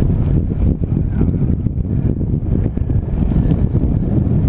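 Wind buffeting the microphone: a loud, ragged low rumble, with a few faint clicks over it.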